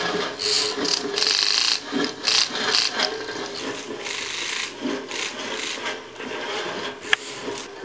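Motor-driven mechanism of a kinetic installation scraping and rubbing crumpled paper-like material, making scratchy rasping strokes in irregular bursts. The strokes are louder for the first three seconds and then softer, with one sharp click about seven seconds in.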